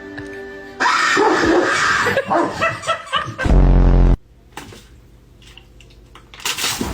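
Music, with a loud deep held note about halfway through and a quieter stretch after it.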